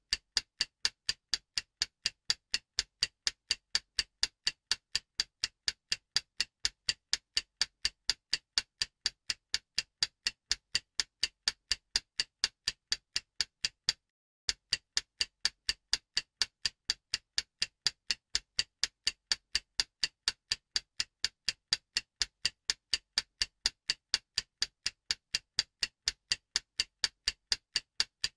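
Stopwatch ticking sound effect: sharp, even ticks at about three a second, counting down the time, with a brief break about halfway through.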